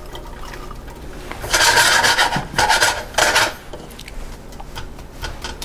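Wooden spatula scraping and stirring diced onion in a hot oiled frying pan: three short scraping strokes starting about one and a half seconds in, over a faint steady sizzle.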